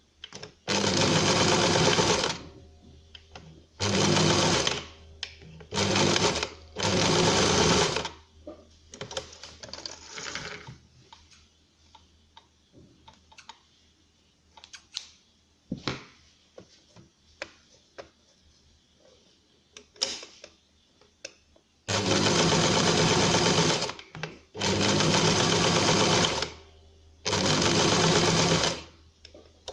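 Electric sewing machine stitching felt in short runs of one to two seconds: four runs at the start and three near the end. Between them is a long quiet stretch of small clicks as the fabric is handled.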